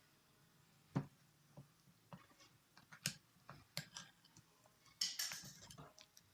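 Sparse, quiet clicks and taps of a spoon against a bowl while black soap paste is worked and stirred, with a short cluster of taps near the end.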